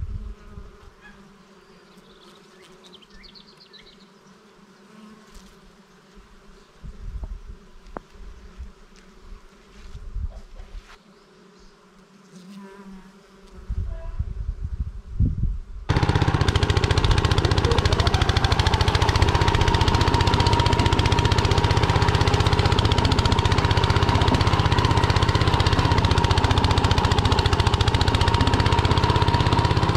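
Motor Sich walk-behind tractor's engine running steadily under way, a loud, even buzz with a held tone. It starts abruptly about halfway through. Before it, only faint outdoor sounds and gusts of wind on the microphone.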